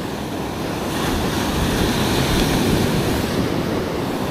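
Ocean surf washing up on the beach, a steady rush of breaking waves that swells a little a second or so in, with some wind on the microphone.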